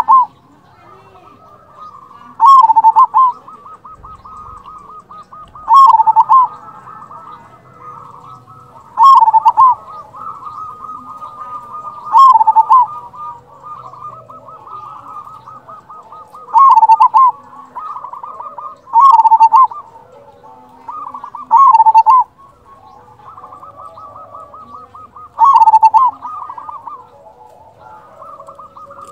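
Zebra dove (perkutut) cooing: a loud, short coo repeated eight times, about every three seconds, with a softer rapid rolling trill between the coos.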